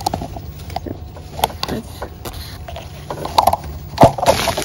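Orange-tree leaves and twigs rustling and snapping as an orange is pulled off and drawn out through the branches, with scattered sharp clicks and one loud knock about four seconds in.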